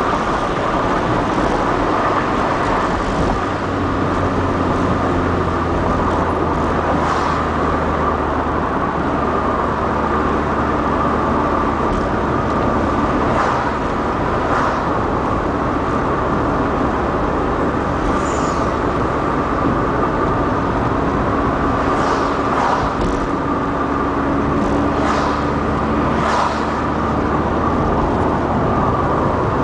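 Steady engine and tyre-on-road noise inside the cabin of a moving Mk3 Volkswagen Golf GTI 16v, with its 2.0-litre 16-valve four-cylinder. A few brief hissing swishes come in the second half.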